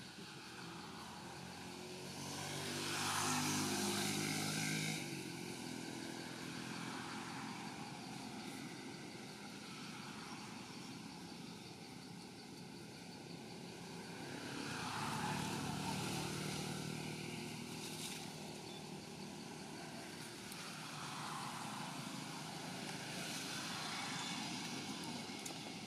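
Distant engine hum passing by, a low motor drone that swells and fades: loudest about three to five seconds in, again around fifteen seconds in, and more faintly near the end.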